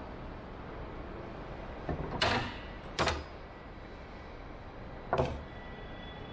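Tools handled on a wooden workbench: a steel ruler scraped and knocked down onto the bench top, then a metal angle finder set down with a second sharp knock. A steady low hum runs underneath.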